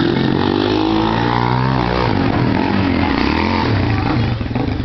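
Four-wheeler engines running: one idles steadily close by while another revs up and back down as it rides across the gravel.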